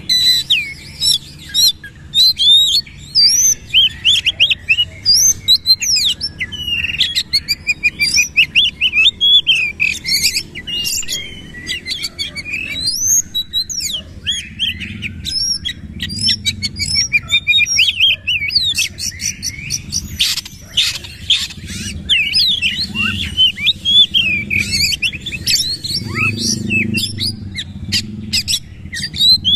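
Oriental magpie-robin (kacer) singing a long, rapid, varied song of whistled glides and sharp notes, with a brief pause a little before halfway through.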